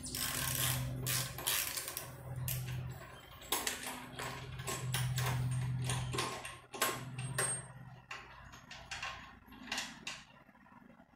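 Metal clicks, clinks and scrapes of tools and parts being handled at a motorcycle's rear axle and sprocket, with bouts of a fast low rattle. The clicking thins out over the last few seconds.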